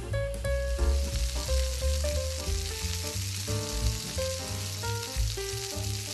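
Pork belly slices sizzling as they fry in a bubbling glaze of soy sauce, rice wine and sugar in a pan, stirred with a wooden spatula. Background music with a bass beat plays throughout.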